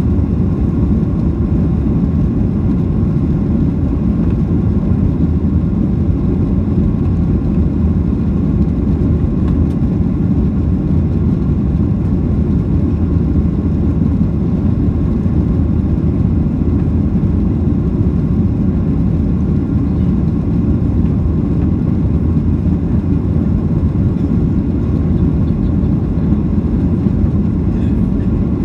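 Jet airliner's engines and rushing air heard from inside the cabin during the climb after take-off: a steady, loud low rumble.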